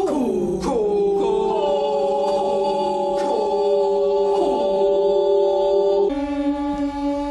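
Several voices singing long held notes in harmony, a cappella, each sliding down in pitch onto its note; the chord shifts to new notes about six seconds in.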